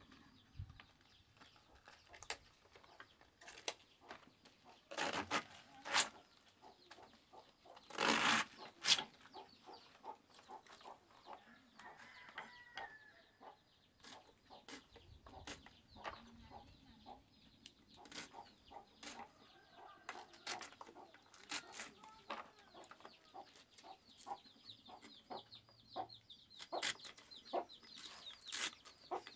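Fresh cabbage being sliced with a curved knife: crisp crunching and cutting clicks throughout, with louder crunches about five and eight seconds in. Chickens cluck in the background now and then.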